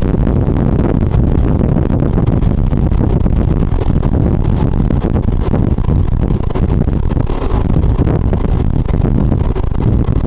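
Triple Mercury 600 V12 outboards running at speed, a steady loud rumble mixed with the rush of the boat's wake.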